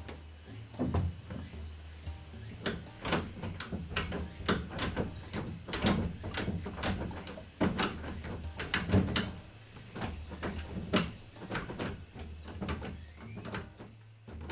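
Irregular knocks and clatter, several a second at times, over a steady high chirring of insects and a low steady hum.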